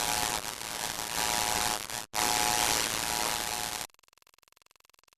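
Loud static-like hiss with a steady buzzing tone through it. It drops out for an instant about two seconds in and cuts off suddenly about four seconds in, leaving only a faint, fast ticking.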